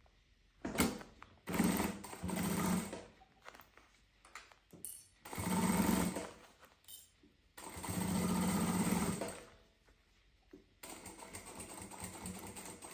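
Jack industrial straight-stitch sewing machine stitching a side seam through layered fabric, starting and stopping in three main runs of a second or two each, with a quieter stretch near the end.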